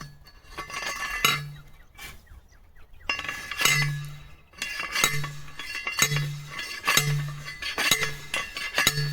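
Steel star picket driver slammed down over a steel star picket, ringing metal clanks that drive the fence post into the ground: one strike about a second in, then a steady run of about one strike a second.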